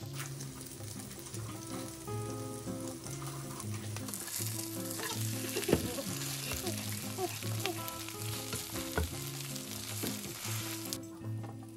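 Vegetable pancake sizzling in oil in a nonstick frying pan, with a few sharp knocks of a spatula on the pan. The sizzle grows louder about four seconds in and cuts off near the end, over soft background music with a steady bass line.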